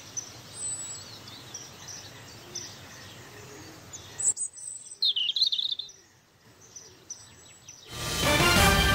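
Birds chirping over a faint steady background hiss. The hiss drops away about four seconds in, and a louder burst of chirps follows. Music starts near the end.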